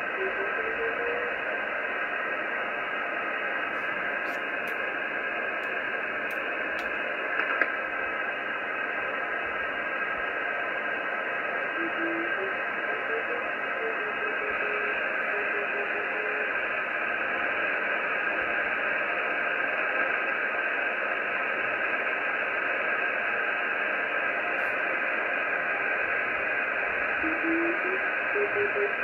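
Amateur radio receiver hiss from the RS-44 (DOSAAF-85) satellite downlink: a steady, narrow-band noise with a faint Morse beacon tone keying on and off in it, its pitch drifting. A few faint clicks come a few seconds in.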